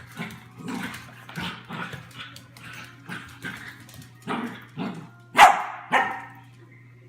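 A dog barking over and over, about two barks a second, with two much louder barks near the end.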